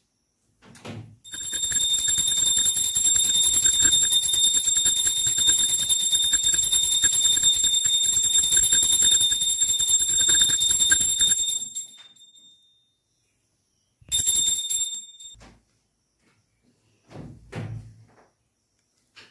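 Puja hand bell rung rapidly and continuously for about ten seconds, then rung again briefly; a couple of dull knocks near the end.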